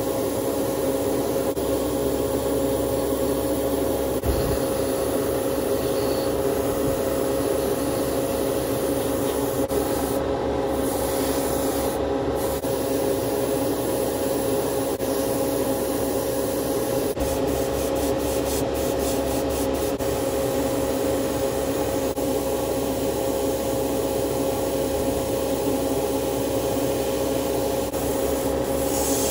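Steady hum and rush of air from an airbrush painting setup, with a constant mid-pitched tone from its motor, as an airbrush sprays black primer onto a small plastic model part.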